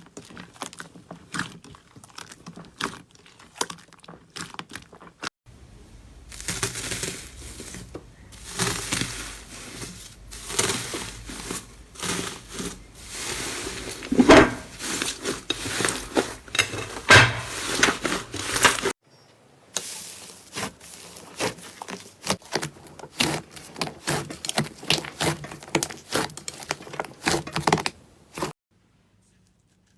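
Slime being pressed, stretched and poked by hand, making dense runs of crackling clicks and crinkles, in a few short clips with abrupt cuts between them.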